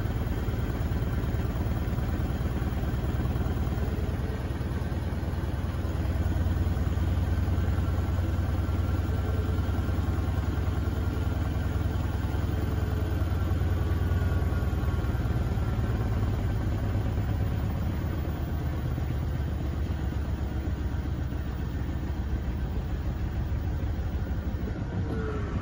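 Front-loading washing machine drum spinning with an unbalanced load: a steady low hum that swells a little in the middle, then begins to wind down in pitch right at the end.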